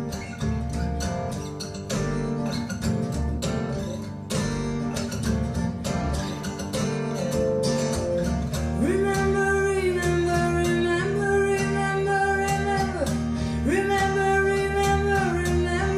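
Music played back over Triangle Borea BR03 BT powered speakers and picked up by room microphones: an instrumental passage without lyrics. A held melodic line with slides comes in about nine seconds in.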